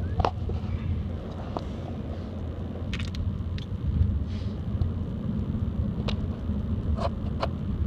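Steady low rumble of a car heard from inside the cabin while it drives, with a few faint short clicks.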